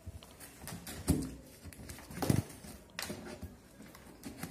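Scissors cutting through the packing tape on a cardboard box, with a few separate sharp snips and crackles as the tape gives and the cardboard is handled.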